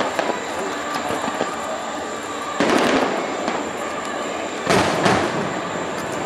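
Fireworks bursting: one sudden burst about two and a half seconds in, then two more close together near the end, each dying away over a steady background noise.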